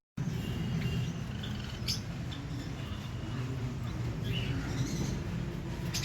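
A few faint, short chirps from small pet parrots, scattered over several seconds, over a steady low hum.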